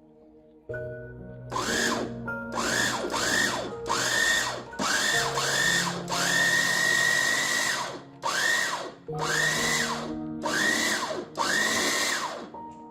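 Small electric kitchen appliance motor, such as a food chopper, run in about eleven quick pulses. Each pulse spins up to a high whine and winds down, with one longer run of about two seconds near the middle.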